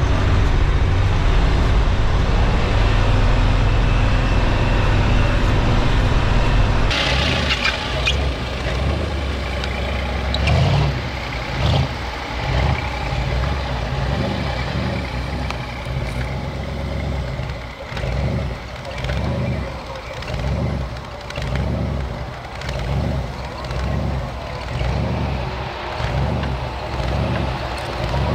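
Off-road vehicle engines running through deep snow. A steady low drone changes abruptly about seven seconds in; from then on the engine sound surges and fades roughly once a second.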